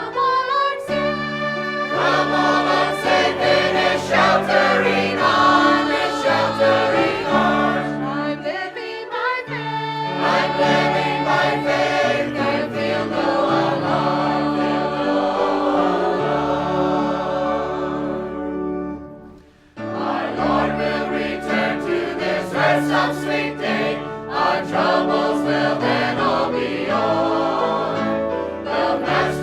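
Church choir singing a gospel hymn with instrumental accompaniment. The music drops away briefly about two-thirds of the way through, then resumes.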